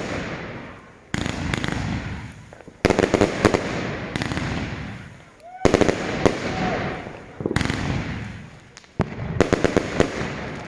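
Luypaers Black Tiger 100-shot 30 mm fireworks cake firing. A loud burst comes every second or two, each followed by crackling that fades before the next.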